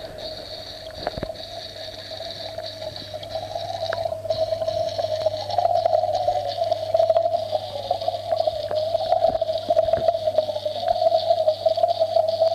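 Aquarium equipment humming steadily while air bubbles stream up through the tank water, with faint scattered clicks. The sound gets louder about four seconds in.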